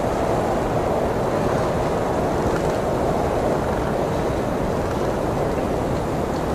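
Snowstorm wind blowing steadily, a dense unbroken rush of noise with a low rumble beneath it.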